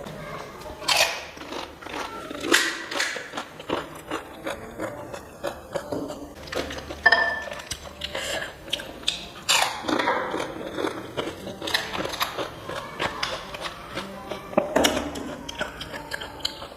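Close-up crunching and chewing of crisp fried puri shells, a run of irregular sharp crackles and bites.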